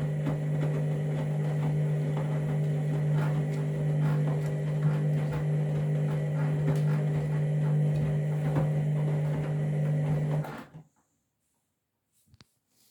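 Candy washing machine running at the start of a 40° whites cycle: a steady low hum with light clicks and rattles, which cuts off suddenly about eleven seconds in.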